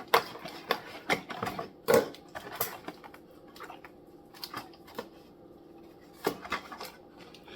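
Toy packaging being handled as the hold-downs holding an RC car in its box are undone: irregular plastic and cardboard clicks, crinkles and small knocks, with sharper clicks about two seconds in and again after about six seconds.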